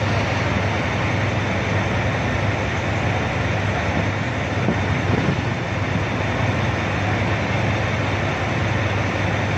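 A steady, heavy mechanical rumble as a tipper truck unloads broken stone into a hopper: a constant low engine hum under a dense rushing noise from the load pouring out.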